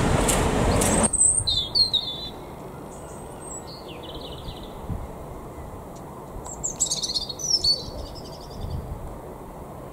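A train passing close by, a loud rushing rumble that cuts off abruptly about a second in. After it, small birds chirp and twitter in short high phrases over a quiet background, most busily around seven to eight seconds in.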